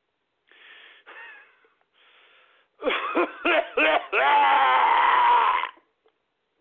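A man coughing hard: faint heavy breaths, then a quick run of three or four sharp coughs about three seconds in, followed by a long strained wheeze of about a second and a half. He is out of breath and struggling after an angry outburst, with his chest hurting.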